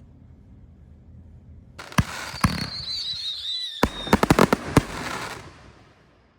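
5-inch aerial canister shells firing: a sharp bang about two seconds in and another shortly after, a wavering high whistle lasting about a second and a half, then a quick run of sharp cracks over a hiss that fades out near the end.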